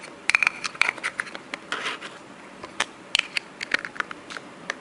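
Irregular small clicks and taps of a reassembled camera lens and its parts being handled, thicker in the first two seconds and thinning out toward the end.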